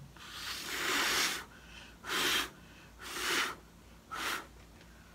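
A person blowing hard through pursed lips onto wet acrylic paint: four gusts of breath, the first long, then three shorter ones about a second apart.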